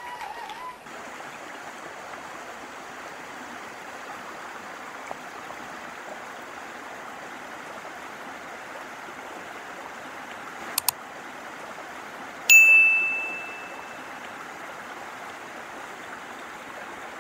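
Shallow creek water rippling steadily over stones. Just before the two-thirds point there are two short clicks, then a single loud, bright chime rings out and fades over about a second and a half.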